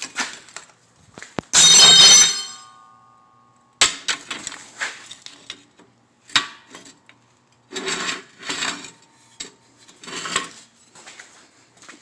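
Steel parts being handled: scattered clanks and clinks, with one loud ringing clang about two seconds in whose ring lingers for a moment.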